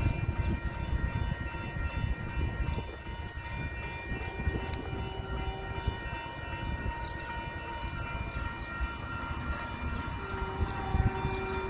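A train rolling past with a continuous low rumble and a steady high-pitched whine.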